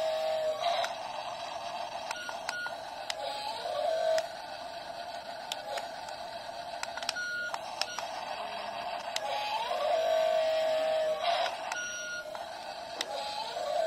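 Small electric gear motors of a toy RC excavator whining in spells as the boom and bucket move. Each spell rises in pitch, holds steady and cuts off, with sharp plastic clicks in between.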